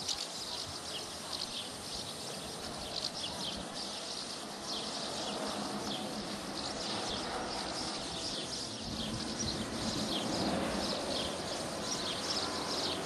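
Outdoor ambience with small birds chirping again and again, short high calls that slide downward, over a steady background hiss. A rougher, rattling mid-range noise swells up about two-thirds of the way in.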